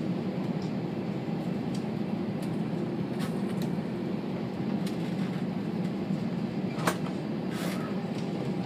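Steady low rumble inside an airliner cabin as the plane taxis on the ground, with a few light clicks and one sharper knock about seven seconds in.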